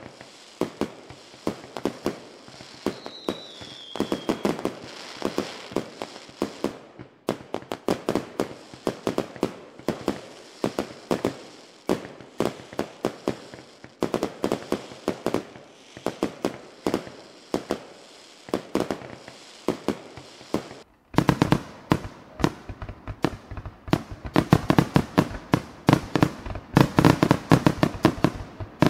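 Fireworks going off in quick, irregular bangs and crackles, with a short falling whistle about three seconds in. The bangs grow denser after a brief drop-out about two-thirds of the way through.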